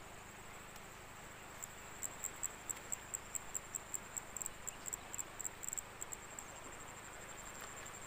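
An insect calling with a steady high-pitched trill, joined from about two seconds in by a run of louder short chirps, about five a second, that stops near six seconds.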